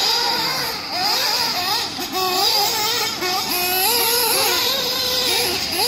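Two-stroke nitro engine of a Mugen MBX7TR 1/8-scale buggy (a fully ported OS Speed Spec 2 on a tuned pipe) revving hard, its high whine rising and falling in pitch several times as the throttle opens and closes around the track.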